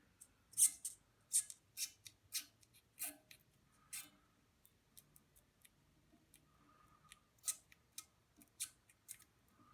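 X-Acto knife blade slicing through rubber pads: a run of short, sharp, scratchy cutting strokes about two a second, a pause of a few seconds midway, then a few more strokes near the end.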